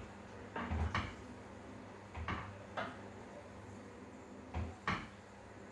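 Wooden spoon knocking and scraping against a stainless steel pan while stirring food, a handful of short clatters spread out with pauses between them.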